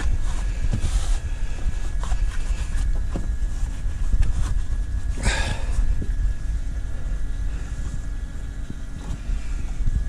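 Hand working inside a caravan toilet's plastic cassette bay: scattered light knocks and clicks of plastic, with a louder scrape about five seconds in, over a steady low rumble of wind on the microphone.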